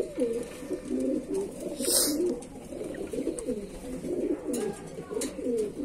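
Domestic pigeon cooing in low, rolling, wavering phrases with hardly a break. There is a short sharp noise about two seconds in.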